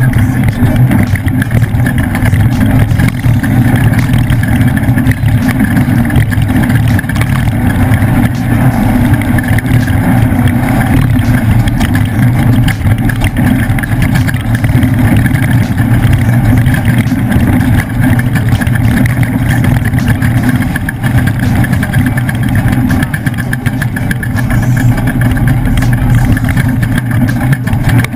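Ford off-road race truck's engine running loud and steady under way at racing speed, heard from on board, with no big changes in revs.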